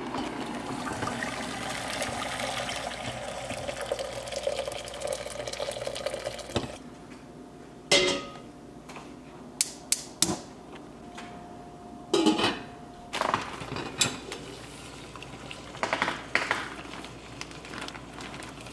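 Hot water pouring in a steady stream from an electric kettle into a stainless steel pot, stopping about six and a half seconds in. Then a scattered run of sharp clicks and light knocks as the pot and the gas range's burner knob are handled.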